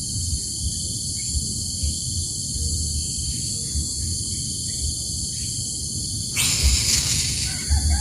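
Steady high-pitched outdoor drone, like an insect chorus, over a low rumble of wind on the microphone. A short, loud rustling burst comes about six and a half seconds in.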